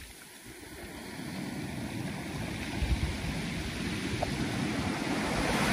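Small waves washing in over a fine shingle beach at the water's edge, the surf swelling louder toward the end.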